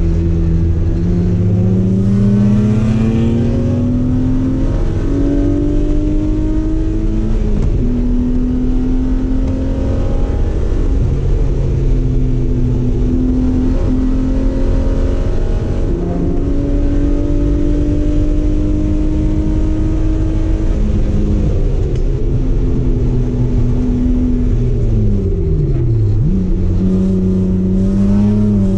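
Race car engine running hard on a circuit, its pitch climbing in long pulls and dropping back at each gear change, with a sharp dip and quick recovery near the end.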